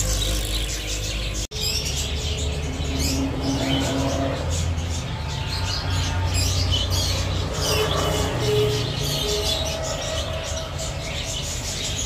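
Many small cage birds chirping and tweeting together in a busy aviary, over a steady low rumble. The sound drops out for an instant about a second and a half in.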